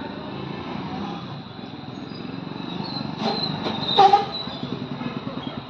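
Chicken pieces frying in hot oil in a kadhai, a steady sizzle. A slotted metal spoon clinks and scrapes against the pan a few times past the middle, loudest about four seconds in.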